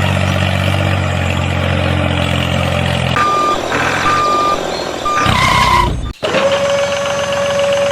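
Truck engine running with a steady low hum, then the truck's reversing alarm beeping three times about a second apart. After a short louder burst the sound cuts off abruptly, and a steady high tone starts near the end.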